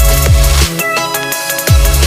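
Electronic dance music with a drum-and-bass beat: deep bass notes that slide down in pitch about once a second, under synth tones and a fast hi-hat pattern.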